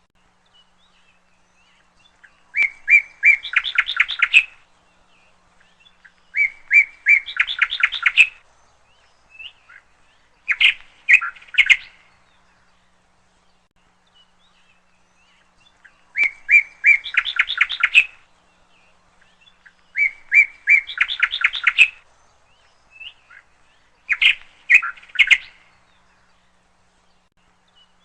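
A songbird singing the same phrase over and over, six times: a few separate short notes leading into a fast run of rapid notes, each phrase lasting one to two seconds with pauses of a couple of seconds between.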